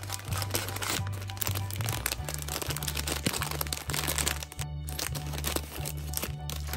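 Thin clear plastic candy bag crinkling as it is squeezed and handled, strongest in the first two seconds, over background music with a low, stepping bass line.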